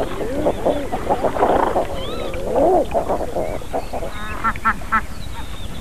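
Geese honking in a noisy jumble: overlapping rising-and-falling honks of Canada geese, then, about four seconds in, a quick run of short, higher nasal honks from white domestic geese.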